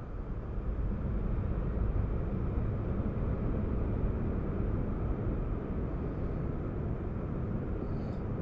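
Boeing 737-800 jet airliner on its takeoff roll, its CFM56 engines at takeoff thrust: a low, steady rumble that builds over the first second and then holds.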